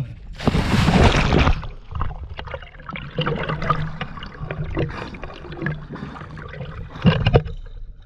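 A person jumping into the sea: a loud splash about half a second in, then churning, splashing water as he swims. A short, louder splash near the end.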